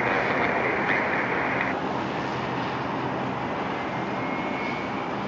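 Beech 300 Super King Air's twin Pratt & Whitney PT6A turboprops at takeoff power, heard from afar as a steady rumbling drone. A faint thin whine rises slightly in pitch from about two seconds in, and a hiss stops about two seconds in.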